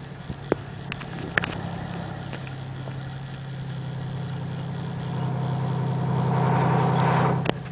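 Fire engine's engine running at idle with a steady low hum; it grows louder a little past halfway, then drops back suddenly near the end. A few sharp clicks sound over it.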